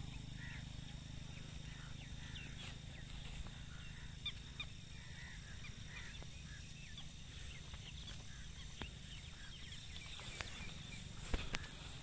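Many birds calling in short, scattered chirps over a steady low background, with a couple of sharp clicks near the end.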